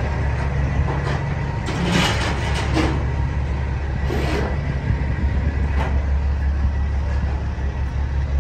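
Diesel semi-truck engine idling with a steady low hum, with a few brief noises on top about two and four seconds in.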